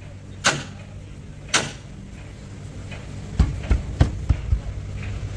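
Glass pane in a rubber seal being worked into a truck cab's window frame with a pull cord and hand pressure: two sharp snaps, then, past the middle, a quick run of about five dull thumps as the glass is pressed and knocked home. A steady low hum runs underneath.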